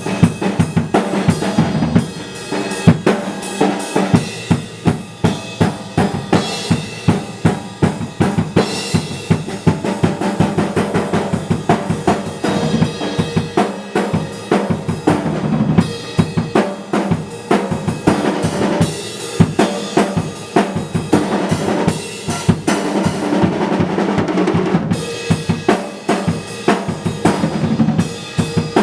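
Drum kit played in a fast, steady groove, bass drum and snare strokes coming several times a second without a break.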